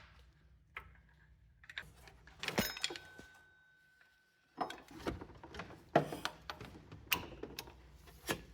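Metal hand tools and loose engine hardware clinking and knocking in short irregular bursts, with a brief pause about four seconds in.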